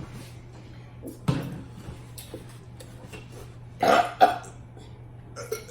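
A person burping: a short burp about a second in, then two quick, louder bursts just before four seconds in.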